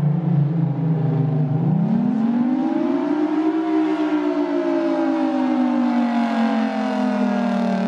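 Federal Signal Thunderbolt 1000T outdoor warning siren wailing, the rise-and-fall of its Attack signal. Its pitch climbs sharply about a second and a half in, then slowly falls.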